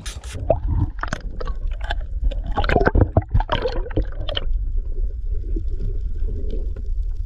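Water splashing and gurgling close to the microphone, over a steady low rumble of wind buffeting it. The splashing is busiest for the first four seconds or so, then settles.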